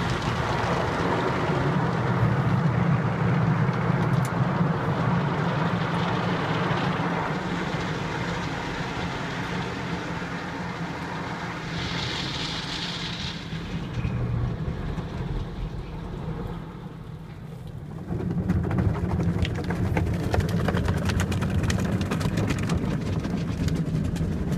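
Automatic car wash heard from inside the car: rotating brushes and water spray beating on the windshield and body over the low hum of the wash machinery. A brief high hiss comes about halfway. The noise eases for a few seconds, then returns strong with a patter of spray on the glass.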